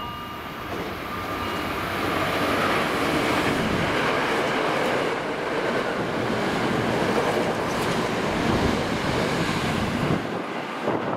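Hankyu limited express electric train passing at speed: the rumble and wheel clatter build over the first two seconds, hold loud for about eight seconds, then fall away near the end.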